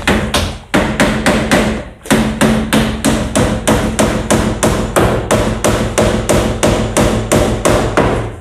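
Hammer blows struck in a fast, even series, about three to four a second, with a brief pause about two seconds in. A steady low hum runs underneath.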